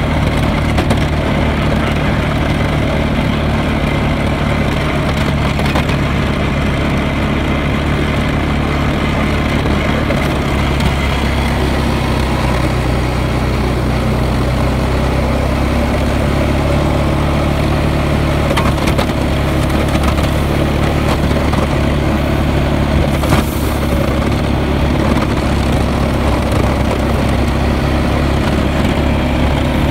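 Honda Rubicon ATV's single-cylinder engine running steadily as the ATV pushes snow with its front plow blade. One short click about three-quarters of the way through.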